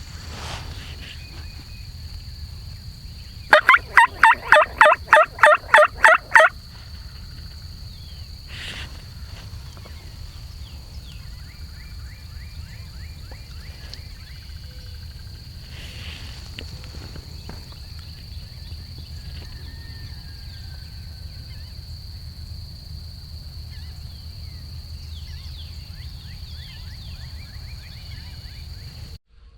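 A loud, close run of about eleven turkey yelps over three seconds, evenly spaced at roughly four a second, over a steady high insect drone.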